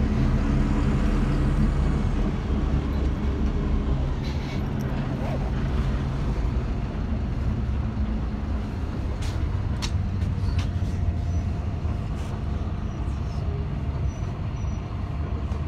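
City bus engine running, heard from inside the passenger cabin as a steady low drone whose pitch shifts a few times, with a few short clicks or rattles past the middle.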